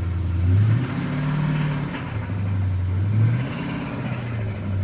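Dodge Challenger R/T's 5.7 Hemi V8 running with a heavy connecting-rod knock from the bottom end, its revs rising briefly about a second in and again past three seconds. The knock comes from an engine running with no oil pressure and a blown bottom end.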